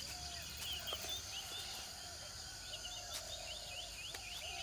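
Outdoor natural ambience of small wild animal calls: a quick run of short high chirps over a slower series of lower notes that rise and fall, with a few faint clicks.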